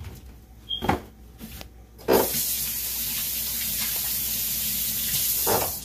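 Kitchen faucet turned on, water running hard into a stainless steel sink for about three and a half seconds, then shut off. A sharp knock comes about a second in.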